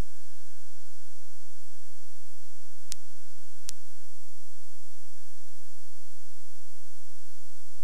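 Steady electrical hum and hiss with a thin high whine, with no live sound from the scene. Two sharp clicks come about three seconds in and again under a second later.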